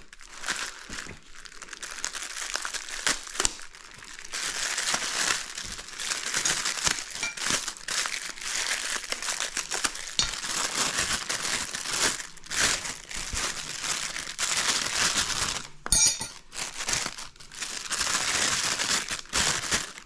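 Plastic packaging crinkling and rustling as it is handled, with scattered small clicks and a short pause near the end.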